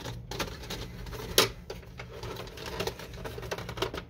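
Plastic parts of a disassembled HP Deskjet printer being handled as its front door panel is pushed loose: a run of light plastic clicks and scrapes, with one sharper click about a second and a half in.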